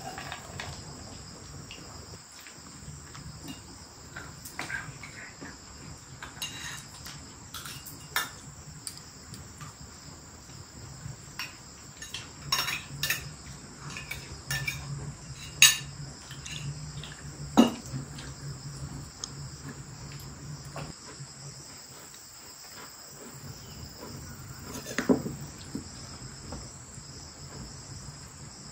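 Kitchenware clinking and knocking now and then, with a handful of sharper strikes, over a steady high-pitched insect chorus.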